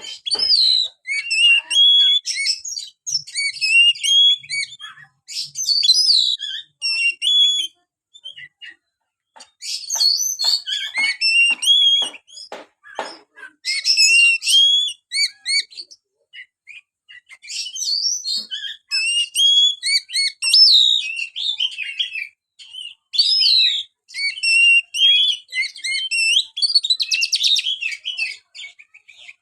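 Oriental magpie-robin (kacer) singing: loud, varied whistled phrases and trills with short pauses between them, and a run of rapid clicking notes about ten seconds in.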